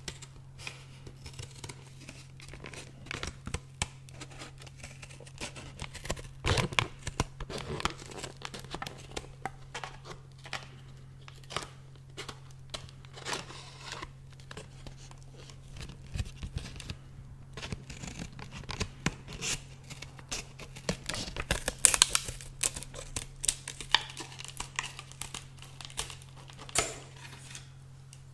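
Plastic blister packaging and its card backing being cut with scissors and pulled open close to the microphone: irregular crinkling, snipping and tearing, loudest about three-quarters of the way through. A steady low hum runs underneath.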